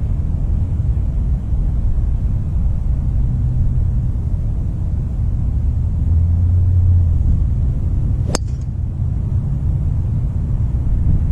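Golf driver striking a teed ball once, a single sharp crack about eight seconds in, over a steady low rumble.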